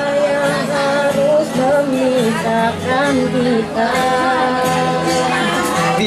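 A girl singing into a microphone, accompanied by an acoustic guitar.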